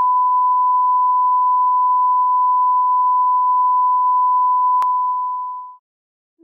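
Steady, unwavering reference test tone of the kind played with colour-bar test patterns, one pure beep held at a single pitch. A single sharp click cuts across it about five seconds in, and the tone fades out shortly before the end.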